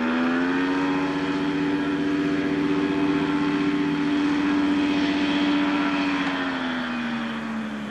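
The Wood Stork's 100 hp 2SI AMW two-stroke engine and propeller running hard as the plane rolls across grass. The engine note climbs slightly in the first half-second, holds steady, then eases back near the end.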